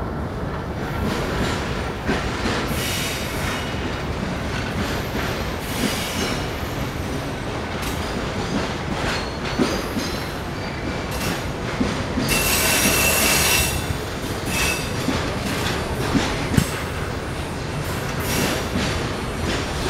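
Loaded tank-car freight train rolling slowly past: a steady rumble of steel wheels on rail. High-pitched wheel squeal rises between about twelve and fourteen seconds in, and a few sharp knocks follow shortly after.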